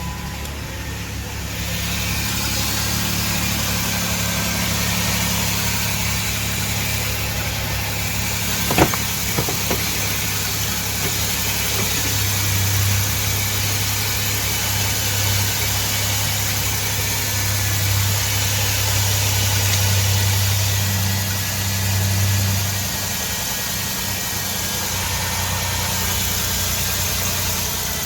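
2009 Chrysler Town and Country minivan's V6 engine idling steadily after being started, with one sharp knock about nine seconds in.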